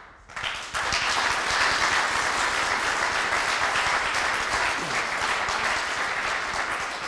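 Audience applauding, a dense patter of many hands that starts about a second in and tails off near the end.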